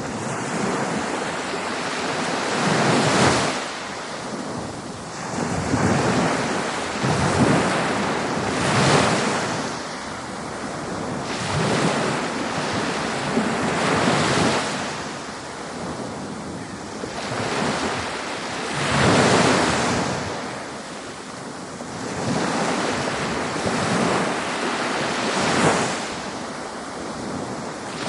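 Ocean waves breaking and washing up a beach, the rush of surf swelling and falling back every few seconds.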